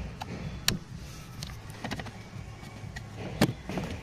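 Scattered light plastic clicks and taps as a hand handles the dashboard trim and glovebox bracket inside a Mazda 5, with the loudest knock about three and a half seconds in.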